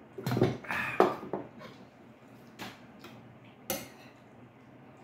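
Metal spoons scraping and clinking against ceramic bowls and plates. A run of scraping and knocks comes in the first second and a half, then two single sharp clinks later.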